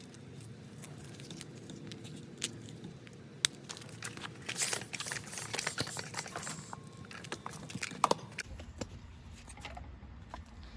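New bicycle inner tube being pumped up with air: a run of hissing pump strokes in the middle, among small clicks and handling noises, over a steady low hum.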